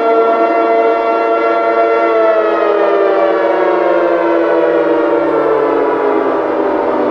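Civil defense siren sounding several tones at once, holding a steady pitch, then falling slowly in pitch from about two seconds in.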